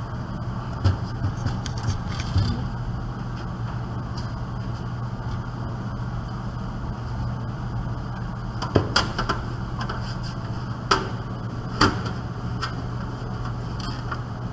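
Sheet-metal side cover of a desktop computer case being handled and fitted back on, giving a few sharp clicks and knocks, two of them near the end louder than the rest, over a steady low background hum.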